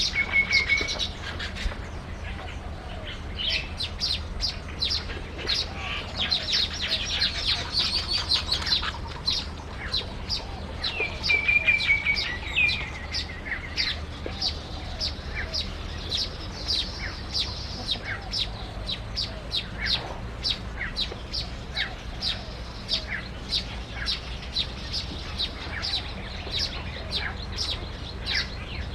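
Small birds chirping: a steady run of short, high chirps at about two to three a second, with a brief whistled note at the start and another about eleven seconds in.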